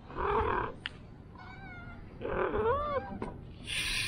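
Domestic cat meowing twice: a short call at the start and a louder, wavering call about two seconds in. Near the end comes a short burst of hiss-like noise.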